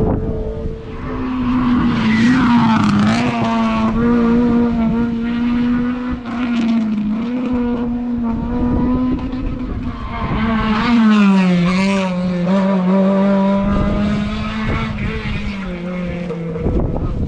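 Racing car's engine held at high revs as it climbs the hill, its note steady with a few brief dips in pitch.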